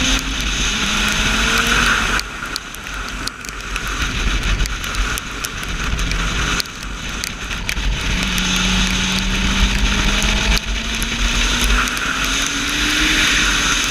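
Sport motorcycle engine at speed on a wet track, its note climbing under acceleration, dropping off about two seconds in, and climbing steadily again in the second half, under heavy rushing wind noise and the hiss of tyre spray.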